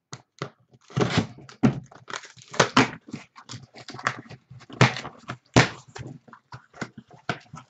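Cardboard case being opened: a cutter slitting the packing tape, then the flaps pulled and pried open, giving a run of irregular scraping and tearing rasps.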